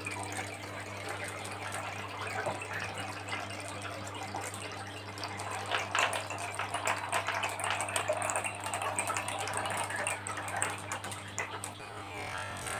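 Marbles rolling and clattering down a marble run track: a continuous rushing rattle of many small clicks, growing denser and louder in the middle and easing off near the end, over a steady low hum.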